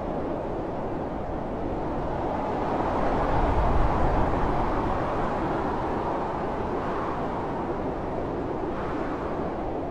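Blizzard wind blowing steadily as a deep, even rush, with a stronger gust swelling about three to four seconds in and easing off again.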